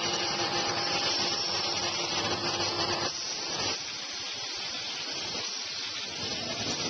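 Paper towel and toilet paper converting machine running, a steady mechanical noise with a faint hum; it drops noticeably in level about three seconds in.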